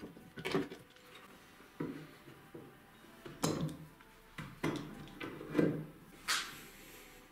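Metal bar clamps being handled: a string of irregular clanks and knocks as the clamps are set and adjusted against wood, with a short, brighter scrape near the end.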